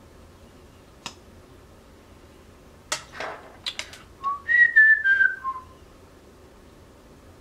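A woman whistling a short phrase of about five notes that steps downward in pitch, a little past the middle. A few sharp clicks and taps come shortly before it.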